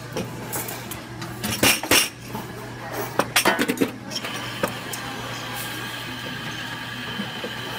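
Clinks and knocks of metal espresso-bar tools, portafilters and steel milk pitchers, handled at a lever espresso machine. About four seconds in, after a button is pressed, a steady high whine starts and holds.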